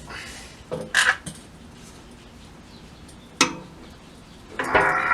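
Metal tools and a steel bicycle frame being handled on the workbench during frame straightening: sharp metallic clinks about a second in and again near three and a half seconds, then a short rattling scrape near the end.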